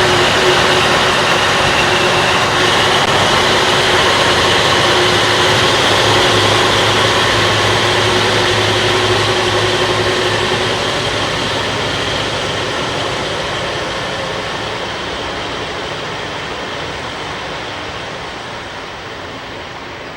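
JNR KiHa 181 series diesel express railcar, its V12 DML30HSC engines running loud under acceleration. The engine note holds steady for about the first half, then fades gradually as the train draws away.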